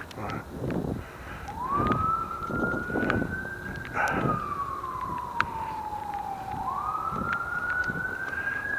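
Emergency vehicle siren in a slow wail, its pitch rising for a couple of seconds and then sinking, then climbing again near the end.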